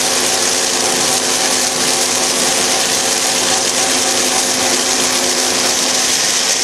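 Snack puff extruder running steadily: its belt-driven electric motor and screw give an even, constant machine whine with several steady tones and a strong high hiss over it.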